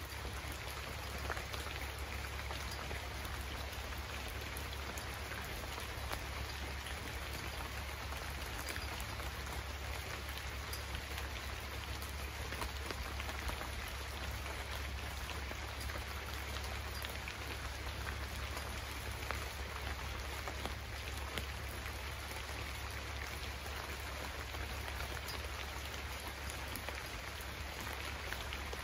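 Steady rain falling, an even hiss with individual drop hits scattered through it, over a steady low rumble.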